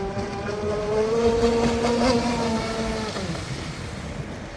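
Electric 6S RC speedboat's brushless motor running at speed: a high, steady whine that grows louder and rises slightly in pitch, peaking about two seconds in, then drops in pitch and fades.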